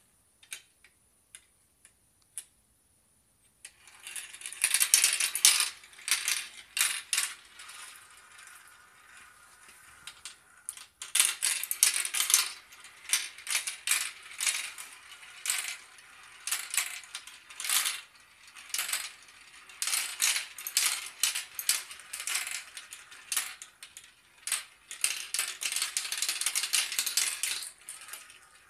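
Glass marbles rolling and clattering down a plastic marble run, clicking through its tubes, funnels and chutes. A few single clicks come first; from about four seconds in there are dense, repeated runs of clacks as marbles drop through the track, ending in one long clatter.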